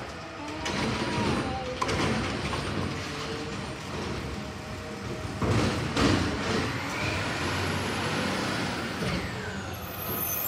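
McNeilus garbage truck running as it drives slowly up the street, its engine droning steadily. A short squeal comes about a second in, and a high whine falls away near the end.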